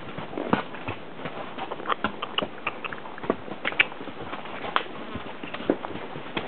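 A ridden horse's hooves and tack: scattered, irregular clops and clicks, a few a second, over a steady hiss.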